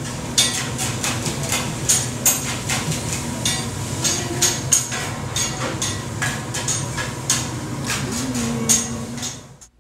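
Busy sandwich-shop prep line: irregular sharp clacks and clatter of utensils, dishes and knives on boards, several a second, over a steady hum of kitchen equipment. It cuts off suddenly near the end.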